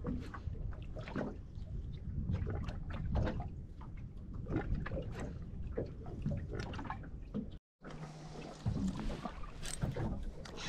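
Water lapping and splashing in small irregular drips and slaps against a small boat's hull. The sound cuts out completely for a moment about three quarters of the way through.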